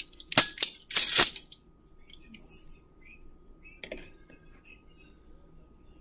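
A plastic measuring scoop and a tin can being handled on a kitchen countertop: a quick run of sharp clacks and knocks in the first second and a half, then a single click about four seconds in.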